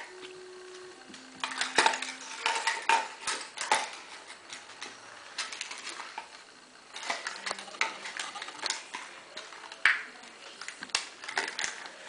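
Irregular clicks and taps from a small dog's claws and paws scrambling on a hardwood floor, with a quieter stretch in the middle.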